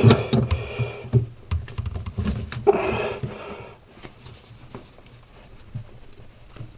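Clicks and light metal knocks of adjustable wrenches being handled on a gate valve's packing nut, which has just been tightened to stop a drip. The clicks come thickest in the first couple of seconds, then thin out.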